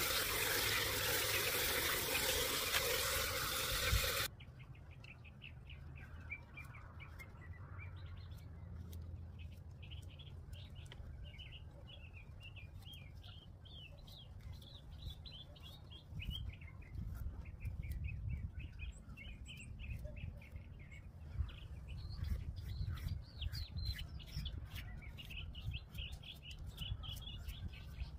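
A garden hose spray nozzle sprays water into a steel bowl of greens for about the first four seconds, then cuts off suddenly. After that, birds chirp, with light clicks of a knife cutting vegetables, most often near the end.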